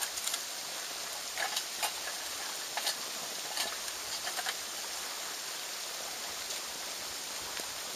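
Twig fire burning in a small tin-can wood-burning camp stove: scattered sharp crackles and ticks over a steady hiss as sticks are pushed into it.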